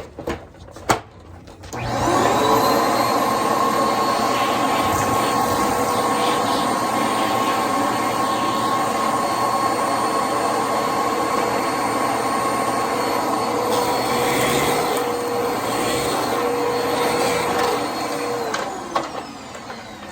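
Eureka Whirlwind Plus vacuum cleaner switched on after a couple of clicks, its motor spinning up about two seconds in and running with a steady whine as debris is vacuumed up through the hose. It is switched off near the end and winds down.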